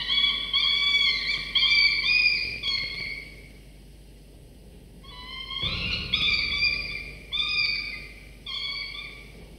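Peregrine falcon nestlings giving begging calls while being fed: drawn-out, shrill wails repeated in two bouts with a pause of about two seconds between. A soft dull thud comes just before the second bout peaks.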